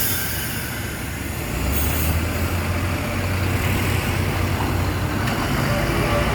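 Heavy bus engine running close by amid road traffic, its low rumble growing stronger about a second and a half in, with a short burst of hissing air just after.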